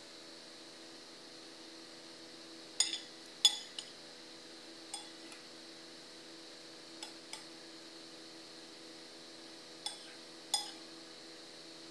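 A metal spoon clinks against a bowl while tossing chopped vegetables: sharp ringing taps in small groups of one to three, spread irregularly, over a faint steady hum.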